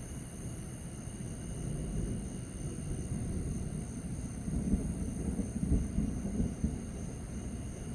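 Distant thunder rumbling low, building over several seconds and swelling to its loudest about halfway through before easing off.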